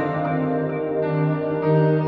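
Background music with long held notes, no speech.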